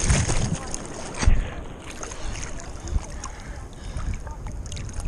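Seawater splashing and sloshing against a surfboard and the action camera at water level. A loud splash comes about a second in, then steadier lapping water.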